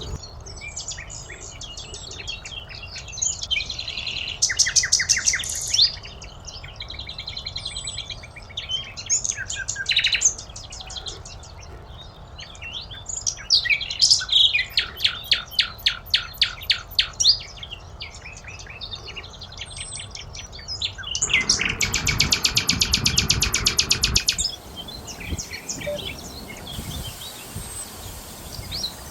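Wild songbirds singing and calling, with phrases of rapid trilled notes and scattered chirps. A louder, faster trill comes about three quarters of the way through.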